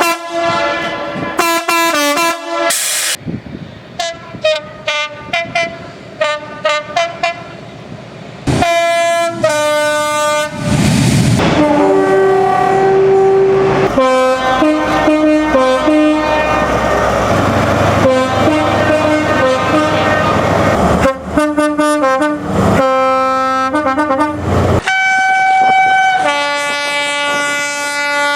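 Train air horns sounding one recording after another: rapid series of short blasts, then longer held chords of several notes. In the middle stretch the horn sounds over the rumble of a train running past. A long steady chord near the end.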